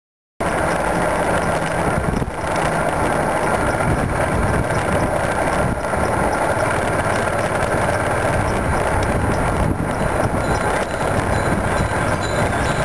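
Motorcycle engine running steadily while riding, mixed with wind and road noise on the microphone. It starts abruptly and cuts off abruptly.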